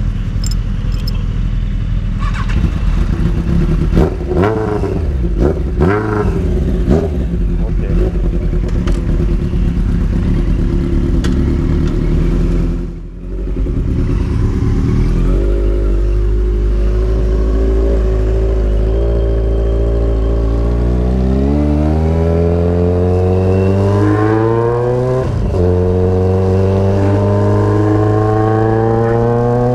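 Loud exhaust of a 1994 Yamaha XJR1200's air-cooled inline-four, just after start-up. For the first several seconds it idles with short throttle blips, and near the middle it dips briefly. It then settles into a steady idle, and about two-thirds through the revs climb slowly and steadily, with one short dip partway up.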